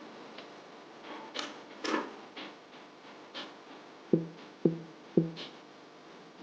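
Sparse film-score music: faint scattered clicks, then three sharp low plucked notes about half a second apart just past the middle.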